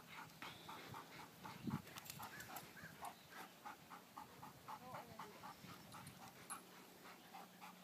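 A dog panting quickly and steadily, about four breaths a second, faint.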